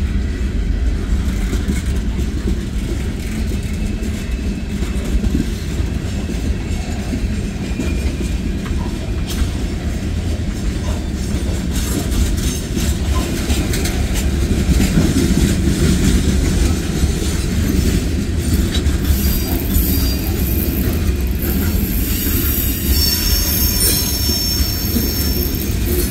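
Cars of a CSX manifest freight train rolling past: a steady low rumble of steel wheels on the rails, with a thin, high wheel squeal near the end.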